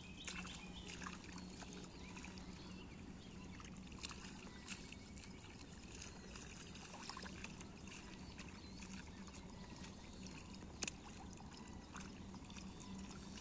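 Faint wet squelching and dribbling of mud and water as rice seedlings are pulled up by hand from a shallow-flooded paddy, with scattered light ticks and one sharper tick near the end. A faint steady low hum runs underneath.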